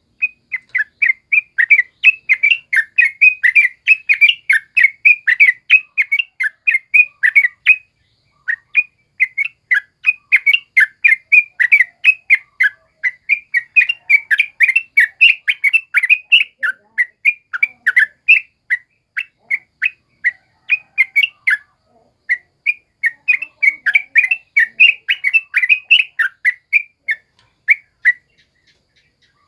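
Yellow-vented bulbul singing a long, fast run of short chattering notes, with two brief pauses, stopping shortly before the end.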